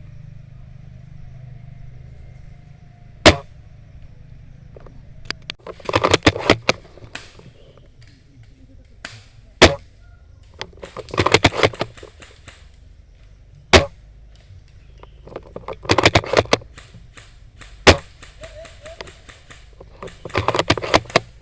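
Airsoft guns firing: single sharp shots alternating with short rapid-fire bursts, about four of each, spaced a few seconds apart.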